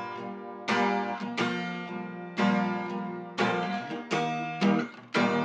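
Guitar strumming chords, about one strum a second, each chord ringing out and fading before the next.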